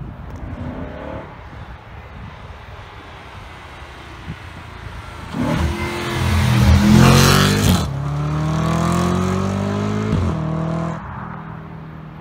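Audi RS4 B8's 4.2-litre V8 with a tuned exhaust, accelerating hard past. It comes in suddenly about five seconds in and is loudest as it passes. It then pulls away with its note rising steadily through the revs, and cuts off abruptly about eleven seconds in.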